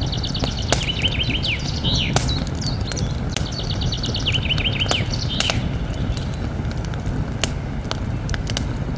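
Campfire burning with a steady low rumble and scattered sharp crackles and pops. A songbird sings twice in the first half: each time a fast run of high repeated notes, then a slower series of lower, falling notes.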